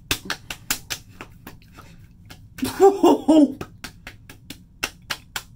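Palms slapping aftershave splash onto a freshly shaved face, about four quick slaps a second. A short voiced exclamation in the middle of the slapping is the loudest sound.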